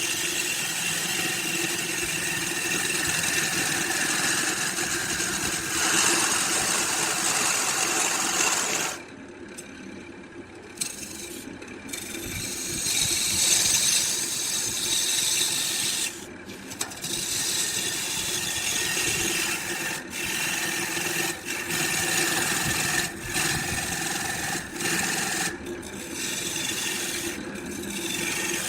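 Woodworking power machinery running and working wood: a steady machine noise over a low hum. It drops abruptly about nine seconds in and breaks off briefly several more times later.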